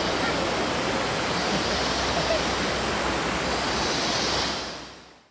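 Shallow thermal river water rushing and lapping right at the microphone, a steady noise that fades out near the end.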